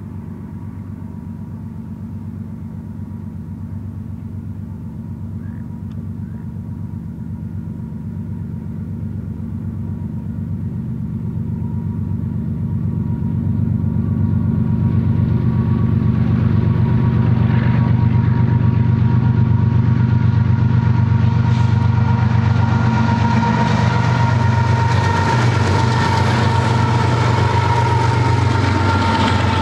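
BNSF GE ES44AC diesel locomotives at the head of a double-stack intermodal train, their engine drone growing steadily louder as they approach. Late on, the drone drops in pitch as the locomotives go by, and the rumble and clatter of the stack cars' wheels on the rails takes over, with a thin steady whine above it.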